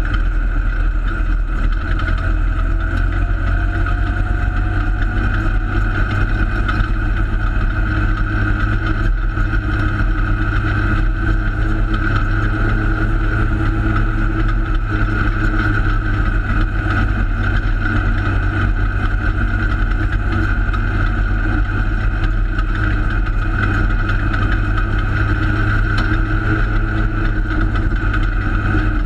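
Holden Torana open-sedan race car's engine running, heard from inside the cockpit at a loud, steady level, with the rumble of the car on the dirt track.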